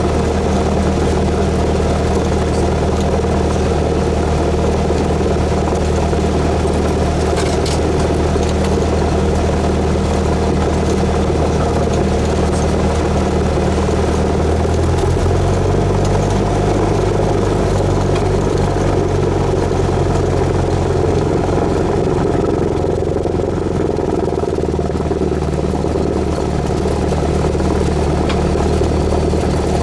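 Cessna 172S's four-cylinder Lycoming engine and propeller running steadily. The engine note changes about halfway through, as with a power change, and settles back near the end.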